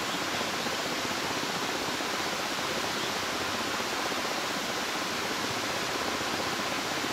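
Steady rushing of flowing river water, an even wash of noise that does not change, with a couple of faint high chirps.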